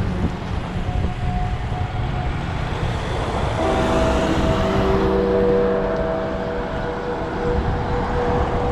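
Steady low rumble of wind and road noise from the ride, under background music of held notes that change to a new chord about three and a half seconds in.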